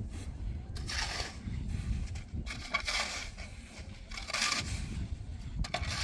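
A steel shovel scraping and turning a sand-and-cement mix on the ground, in about three gritty strokes a second or two apart.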